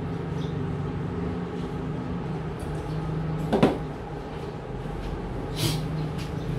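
Small drinking glass set down hard on a tabletop: one sharp knock with a short ring about three and a half seconds in, over a steady low hum. A softer knock follows near the end.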